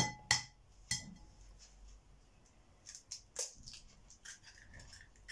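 An egg tapped sharply against the rim of a china plate three times within the first second, the plate ringing briefly after each tap, then faint crackles of the shell being pulled apart about three seconds in.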